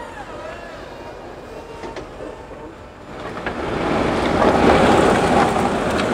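An IBC tank on its pallet being dragged across a truck's metal load floor by a strap hooked to a pallet truck's forks. It makes a scraping rumble that starts about three seconds in, grows loud and then eases slightly.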